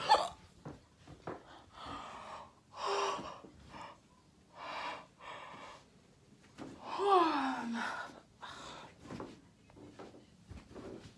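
A sharp knock right at the start, then a person's heavy breaths in and out, close to the microphone, with a falling voiced sigh about seven seconds in.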